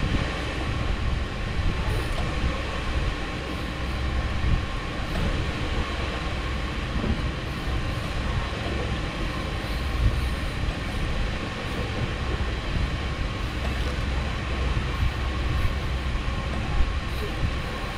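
Steady low mechanical rumble with a faint constant hum, mixed with wind buffeting the microphone.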